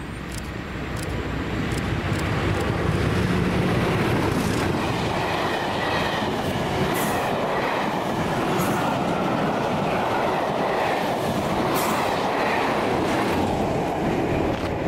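A train passing at speed on the East Coast Main Line: it builds up over the first couple of seconds, then gives a steady rush of wheels on rail with scattered sharp clicks.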